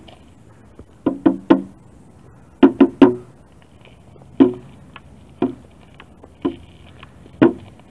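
Hand-held frame drum struck with a beater: two quick runs of three beats, then single beats about one a second.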